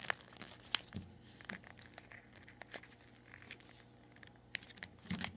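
A sheet of paper being handled and refolded by hand, crinkling with scattered short sharp crackles as it is creased.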